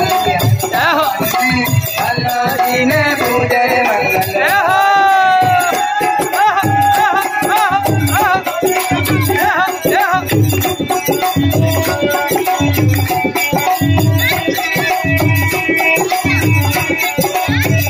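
Live devotional bhajan music: a harmonium-led melody over a steady hand-drum beat of about two strokes a second, with jingling rattle-like percussion and a singer's voice gliding in and out.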